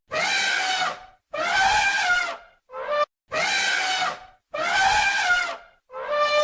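Elephant trumpeting: about six calls in a row, each about a second long, with short, abrupt gaps between them.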